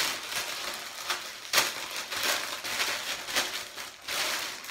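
Thin clear plastic garment packaging crinkling and rustling as it is handled and pulled open around a piece of clothing, with sharper crackles about one and a half seconds in and again near the end.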